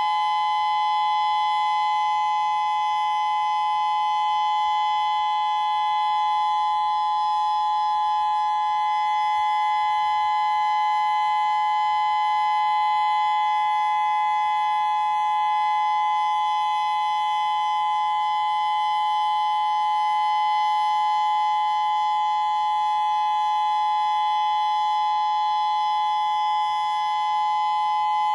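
A Federal Signal Modulator II 6024B electronic outdoor warning siren sounds a steady tone during a siren test. It is two close pitches held together, loud and unbroken, with no rise or fall in pitch.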